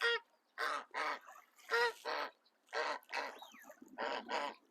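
Chinese geese honking: a quick series of short, loud honks, roughly two a second.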